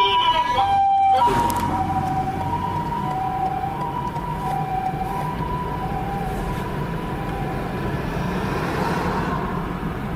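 Japanese ambulance's two-tone hi-lo siren, alternating between a higher and a lower tone each held for under a second. It grows fainter and dies away near the end, leaving the hum of road traffic.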